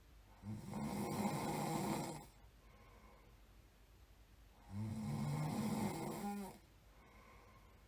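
A person snoring: two long, low, rasping snores about four seconds apart, each lasting about two seconds, with quiet between them.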